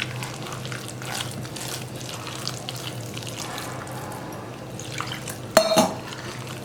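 Hands mixing wet ragi flour batter with chopped onion and green chilli in a bowl: soft, irregular wet mixing sounds over a low steady hum, with one short sharp clatter about five and a half seconds in.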